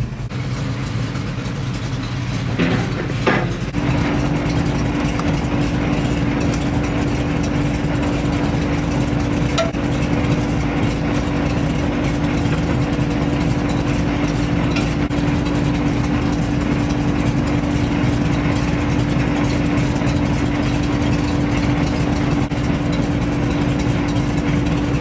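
Heavy truck engine idling steadily with a constant hum. Two short knocks come about three seconds in.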